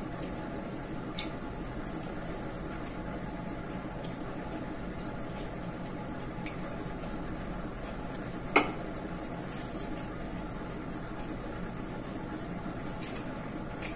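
Insect chirping: a steady high-pitched trill of rapid pulses, which stops for about two seconds past the middle and then resumes. A single sharp click sounds about eight and a half seconds in.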